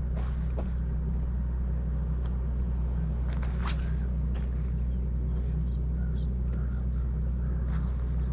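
Steady low engine rumble of a motor running without change, with a few light clicks and a swish as the rod is cast about three and a half seconds in.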